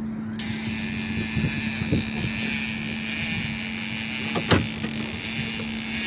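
A fishing reel's line-out clicker buzzing steadily as a hooked sturgeon pulls line. It starts abruptly about a third of a second in, over the low steady hum of the boat's idling engine. A single knock comes about four and a half seconds in.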